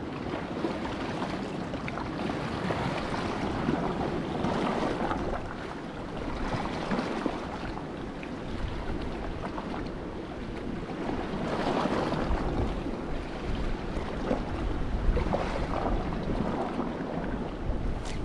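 Sea waves washing against the shore, swelling and falling back every few seconds, with wind buffeting the microphone, stronger in the second half.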